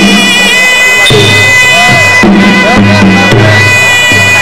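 Traditional Cambodian boxing music: a sralai reed oboe plays a continuous, slightly wavering melody over low pitched skor yaul drums that alternate between two notes.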